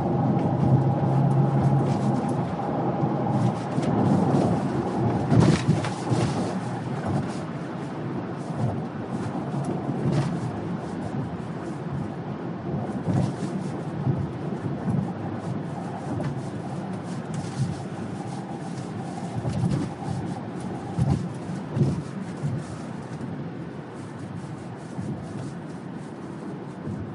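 Steady rumble of a car driving, heard from inside the cabin: engine and tyre noise, with occasional bumps and knocks from the road.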